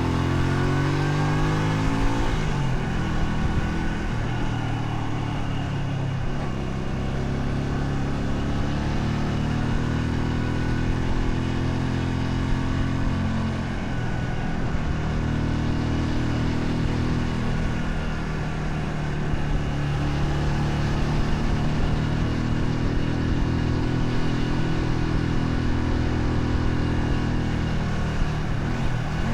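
Honda Shadow 125's small V-twin engine running on the road, its revs climbing and dropping back about four times, a little before a third of the way in, around the middle, about two-thirds in, and at the very end.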